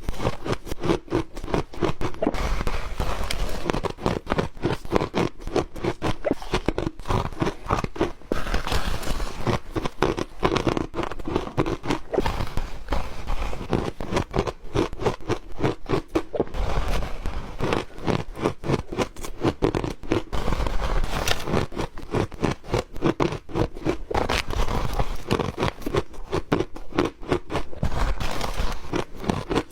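Ice being bitten and chewed close to the microphone: a steady, rapid run of crunches and cracks.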